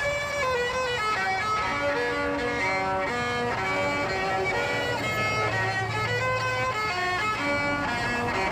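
Solo violin playing a quick melody of short bowed notes that change pitch every fraction of a second.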